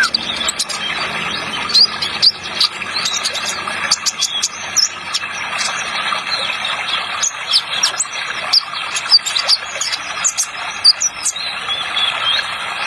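Kolibri ninja sunbird chirping and twittering in rapid, high, sharp notes over a steady running-water sound effect.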